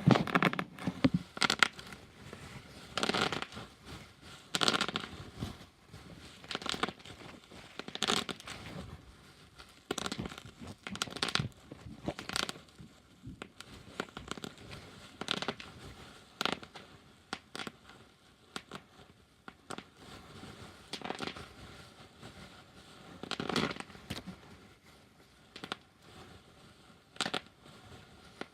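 Bubble wrap being popped by hand: irregular sharp pops and snaps, often several in quick succession, with crinkling of the plastic sheet between them.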